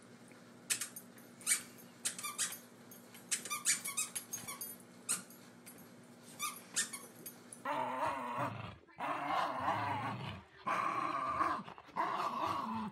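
A run of short, sharp squeaks and clicks as a dog works at a toy. About eight seconds in this gives way to dogs growling steadily, with a few brief breaks, while playing tug-of-war over a ring toy.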